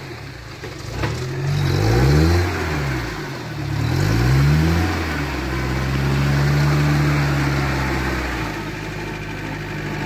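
UAZ-452 van's engine revving up and down several times as it works its way out of deep mud. It then holds at steady higher revs and drops back to a lower steady note near the end.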